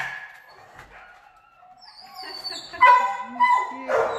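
Shelter dogs in their kennels whining and yipping in high-pitched, wavering cries, followed by a sharp bark near the end.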